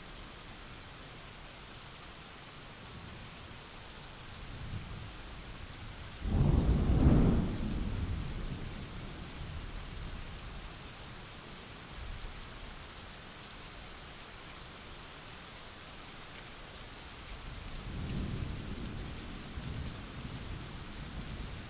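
Thunderstorm recording: rain hissing steadily, with a sudden loud thunderclap about six seconds in that trails off into rumble, and a softer roll of thunder near the end.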